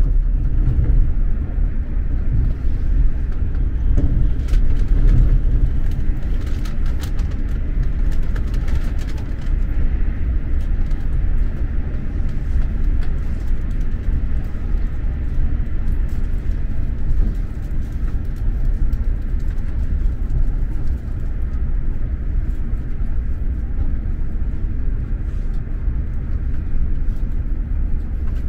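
Running noise heard inside an X2000 high-speed train coach: a steady low rumble of the wheels and bogies on the rails, with a few faint clicks in the first third.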